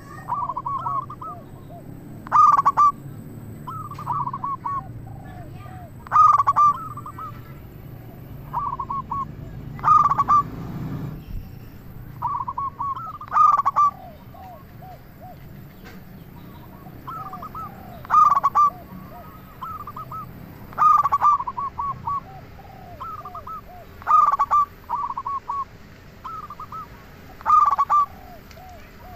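Male zebra dove (perkutut) cooing its rhythmic song over and over, a phrase about every two seconds, each starting with a loud clipped note and trailing into a run of softer rolling coos.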